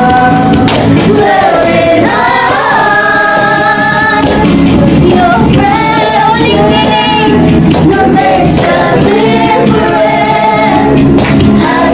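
A group of men and women singing a worship song together over backing music.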